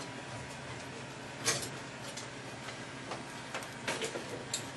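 Hand tool scraping and chipping old tar sound-deadening material off a steel car floor pan. There is one sharp knock about a second and a half in, then a run of lighter ticks and scrapes near the end, over a steady low hum.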